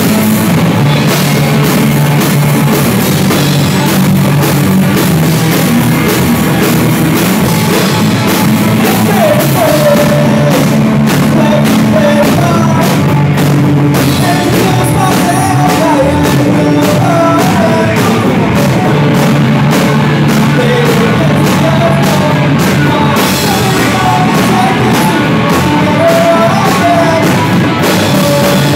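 Live rock band playing loud and steadily: electric guitars, bass guitar and drum kit together, with a wavering melody line on top from about nine seconds in.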